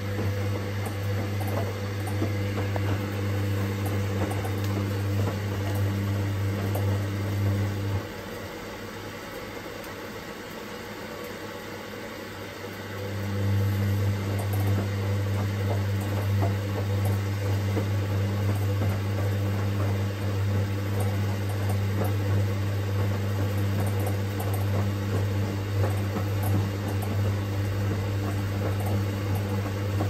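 Front-loading washing machine (a Hoover-built 9 kg Teco) running mid-wash, with a steady electrical hum. The hum cuts out about 8 seconds in and comes back about five seconds later.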